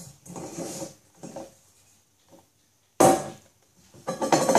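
Handling noises of plastic bowls and cups being moved and knocked on a table close to the microphone: a few soft scuffs, then a sudden loud knock about three seconds in, and more clattering near the end.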